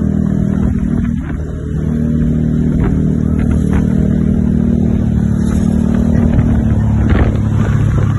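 Heavy road vehicle's engine running close by: a steady, loud low drone that shifts in pitch about a second in and again about seven seconds in.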